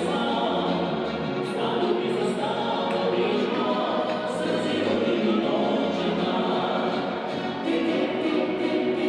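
Music with many voices singing together like a choir, continuous and steady.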